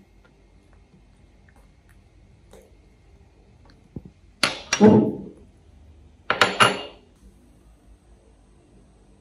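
Small ceramic dishes handled and set down on a glass-topped table, with two short bursts of clattering about two seconds apart.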